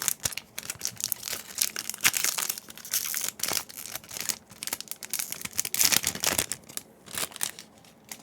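The plastic wrapper of a Yu-Gi-Oh Grand Creators booster pack crinkling and tearing as it is opened by hand, a dense run of crackles that thins out near the end.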